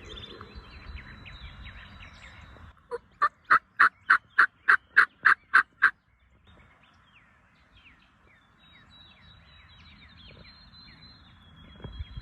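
A turkey yelping: a run of about eleven loud, evenly spaced yelps, about three and a half a second, lasting about three seconds. Songbirds chirp faintly before and after.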